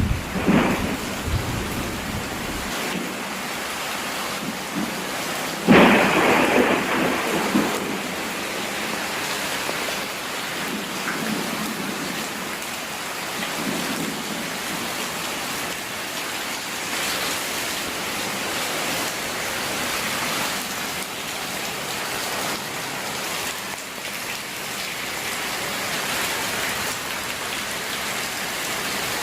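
Steady heavy rain falling, with thunder rumbling at the start and dying away, then a sudden loud thunderclap about six seconds in that fades over a couple of seconds.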